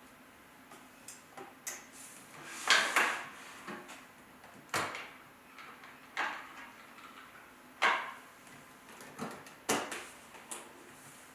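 Irregular clicks and knocks, roughly one a second, each sharp and quickly fading. The loudest come about three seconds in.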